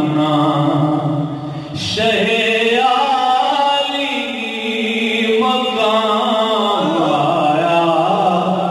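A man's voice singing a manqabat, an Urdu devotional poem, into a microphone with no instruments, in long held, wavering notes. There is a short break for breath about two seconds in, then new phrases.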